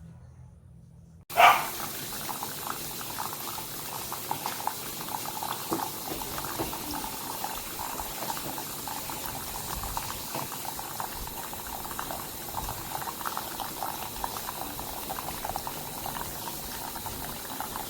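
Single-serve K-pod coffee maker brewing: hot water bubbling and spitting through the pod into the cup, a steady crackling noise that starts abruptly about a second in.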